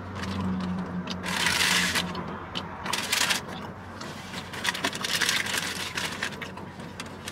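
Rustling and crinkling of takeout food packaging being handled, in three or four bursts with a few light clicks.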